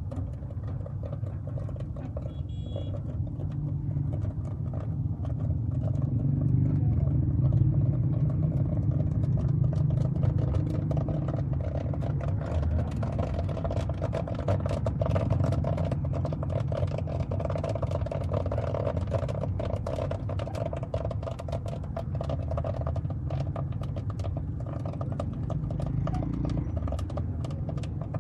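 Popcorn cooking at a street stall: many small, quick crackling clicks of kernels popping and rattling in the pan over a steady low rumble. The clicks thicken about a quarter of the way in and thin toward the end.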